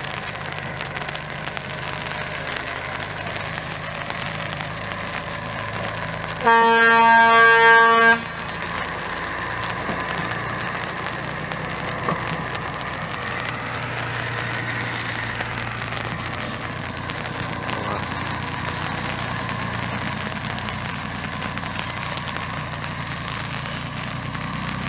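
Heavy semi-truck's diesel engine running steadily under load, with a loud air horn sounded as a double blast lasting about a second and a half, some six seconds in.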